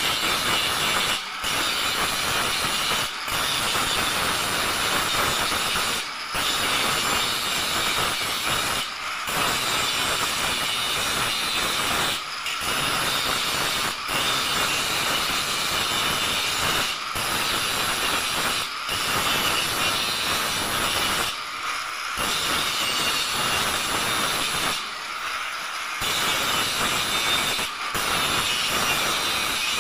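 Handheld angle grinder with an abrasive disc grinding the steel bars and joints of a welded window grill, throwing sparks. It runs on continuously, with short dips every second or few as the disc is lifted off the metal and set down again.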